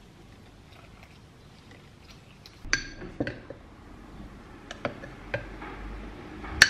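Metal measuring spoon clinking against a glass mixing bowl and glass jar while flour is scooped. About five separate, sharp clinks, starting about two and a half seconds in, with the loudest near the end.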